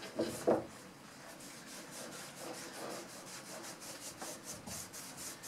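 Cloth rag rubbed by a gloved hand over stained birch and plywood, making soft, quick back-and-forth wiping strokes as wood stain is worked into the grain. Two light knocks come right at the start.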